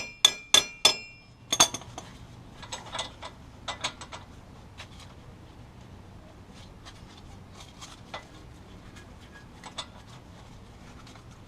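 Hammer blows on a tight, never-replaced wheel hub assembly to knock it loose: four sharp, ringing metal strikes in the first second and two more at about a second and a half. Lighter scattered knocks and clinks follow.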